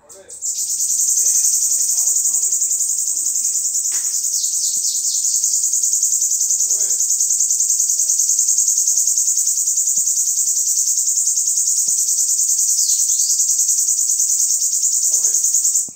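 Bananaquit (sibite) singing its long unbroken 'alonga' song: a high, rapidly pulsing trill held for about fifteen seconds that stops abruptly near the end.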